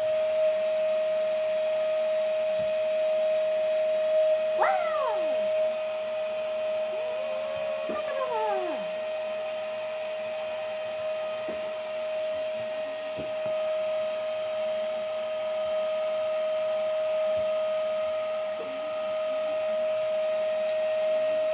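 Vacuum cleaner running steadily in the background with a constant hum. A cat meows twice over it, once about four seconds in and again in a longer call a few seconds later.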